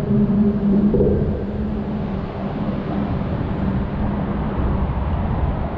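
Low rumble with a steady engine hum that fades out about four seconds in.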